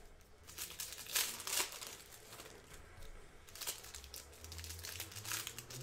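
Foil packs of 2016 Donruss Optic football cards crinkling as they are handled and opened, with a few louder crackles at about a second in, a second and a half in, and near four seconds in.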